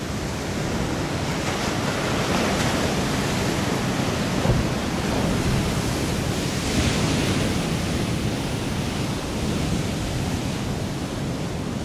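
Ocean surf breaking and washing in, swelling louder twice, with wind rumbling on the microphone.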